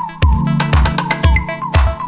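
Background music with a steady electronic beat, about two bass-drum hits a second, under sustained synth notes.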